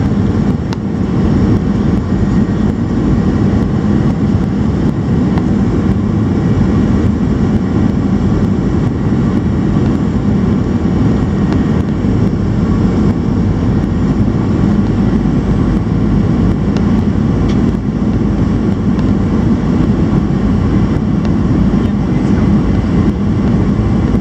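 Boeing 737 airliner in flight heard from inside the passenger cabin: a loud, steady drone of jet engines and rushing air, low and even throughout.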